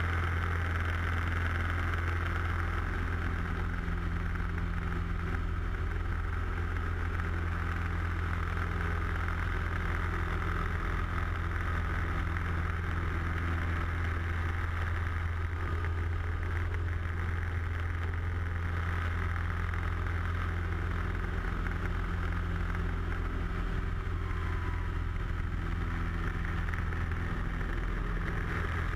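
Light aerobatic plane's piston engine and propeller droning steadily, heard from inside the cockpit.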